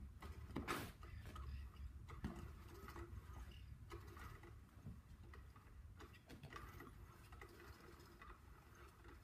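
Scattered light taps and clicks over a low steady hum, with one louder knock under a second in: a cat batting at and chasing a toy.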